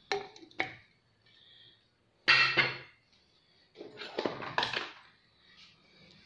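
Kitchen dishes and utensils knocking and clattering: two sharp clicks at the start, a louder clatter a little over two seconds in, and a cluster of knocks about four seconds in.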